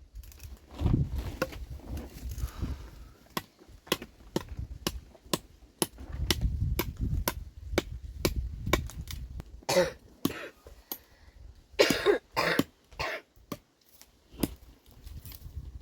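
A person coughing in a few harsh bursts in the second half, over a run of sharp clicks or knocks and a low rumble.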